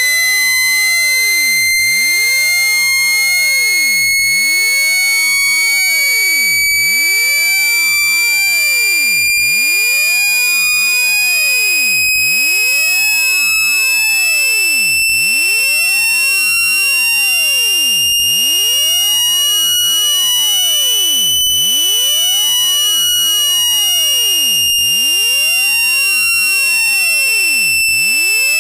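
Continuous shrill electronic test tone from a speaker-cleaner sound, meant to shake water and dust out of a phone speaker. It glides slowly up in pitch and eases back down a little near the end.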